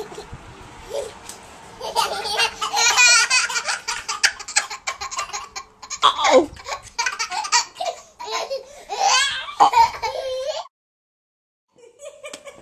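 A toddler laughing and giggling in repeated high, wavering peals, which cut off suddenly about two seconds before the end.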